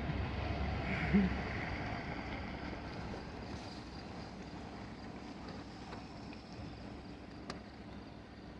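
Truck running along a bumpy driveway: a low engine and driving rumble that fades gradually. A single sharp click comes near the end.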